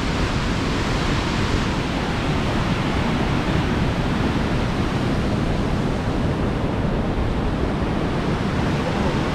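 Steady, even rush of falling water from Box Canyon Falls, the 85-foot cascade of Canyon Creek pouring into a narrow quartzite canyon.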